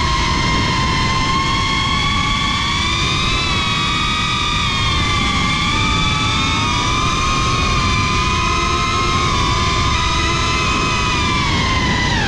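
FPV quadcopter's brushless motors and propellers whining, heard from the action camera mounted on the drone: a high whine that drifts gently up and down with the throttle, over a low rushing of wind and prop wash.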